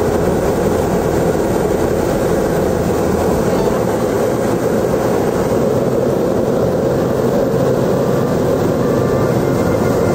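Hot-air balloon's propane burner firing in one long, steady blast, heating the air in the envelope.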